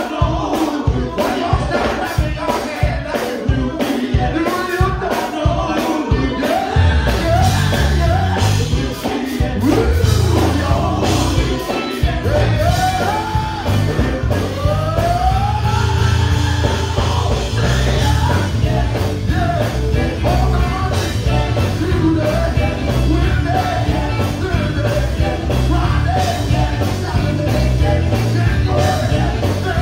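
Live performance by a male vocal group singing and shouting over a band with a fast, steady beat; heavy bass comes in about seven seconds in.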